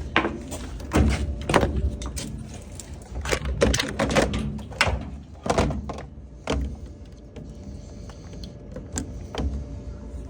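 Irregular knocks and clicks of hand tools against the washer's plastic and metal parts as the water inlet valve is worked loose, about a dozen sharp ones in the first seven seconds, then a few lighter taps.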